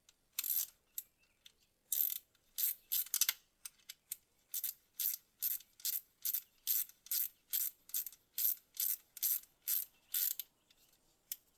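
Hand ratchet with a 10 mm socket clicking as it runs down a bolt: a few uneven strokes at first, then a steady run of about two to three back-strokes a second, and a last click near the end.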